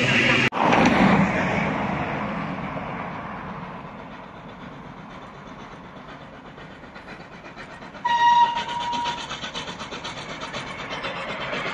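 FS 740 steam locomotive approaching: one short whistle blast of about a second, sounded about eight seconds in, then rhythmic exhaust chuffing that grows louder as the engine draws nearer.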